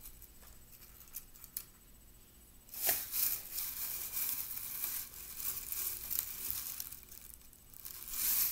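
Rustling and crinkling of something being handled and scrunched by hand. It starts about three seconds in, runs for several seconds and comes back briefly near the end.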